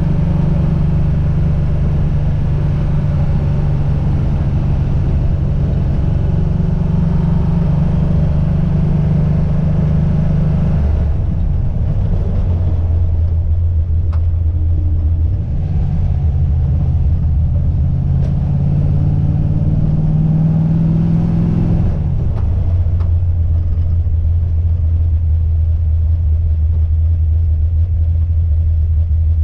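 Car driving at low speed, its engine running steadily; the engine note drops about a third of the way in, climbs again and drops once more about three-quarters in. A few faint clicks come through, the kind of rear-end click over bumps that the owner is trying to trace, suspected in the coilovers.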